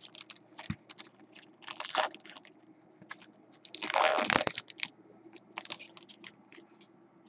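A foil trading-card pack wrapper crinkling as it is torn open and peeled back by hand. It comes in bursts of crackling, the loudest about four seconds in.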